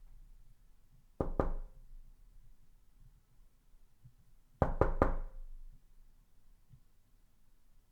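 Knocking on a door: two quick knocks about a second in, then three quick knocks near the middle.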